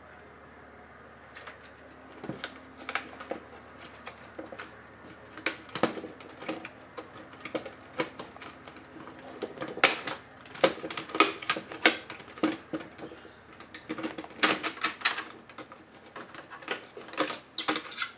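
Irregular sharp plastic clicks and snaps from an ASUS Eee PC 701SD netbook's case as its top-case clips are pried loose and the panel is lifted, the clicks coming in quick clusters and most dense in the second half.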